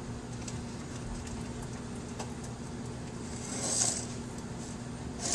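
Quiet steady electrical hum, with a brief soft rustle of a plastic toy being handled about three and a half seconds in.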